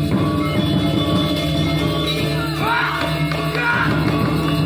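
Balinese gamelan orchestra playing the dance accompaniment: a dense, steady texture of ringing metallophones and gongs. A voice cries out over it about two and a half seconds in.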